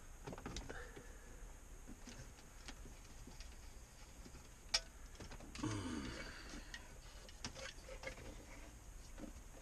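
Faint scattered clicks and rattles of plastic and wiring as an aftermarket double-DIN car stereo is handled, unplugged and lifted out of the dash. There is a sharper click about five seconds in and a brief scraping rub just after it.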